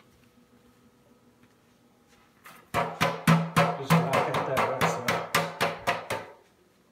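A clear plastic refrigerator door bin being struck by hand: a quick, uneven run of knocks, about three a second, starting a couple of seconds in and lasting about three and a half seconds.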